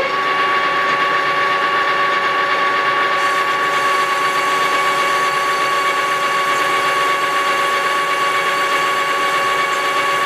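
Metal lathe running at a steady speed: a geared headstock with a steady multi-tone whine, while a boring bar takes a light skim cut in an aluminium motorcycle hub.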